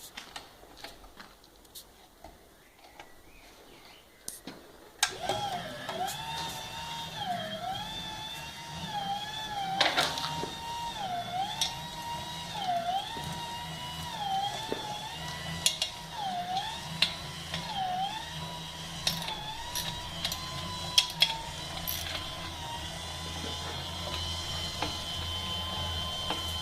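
Windshield wiper motor driving a home-made pellet auger through a bicycle chain and sprockets: a whine starts about five seconds in and dips in pitch about every second and a half, then holds steady near the end, with scattered clicks.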